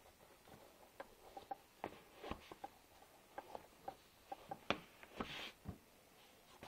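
Faint, irregular taps, clicks and short rustles of running shoes being handled and put on over a hard floor, with a couple of sharper knocks about two and a half and four and a half seconds in.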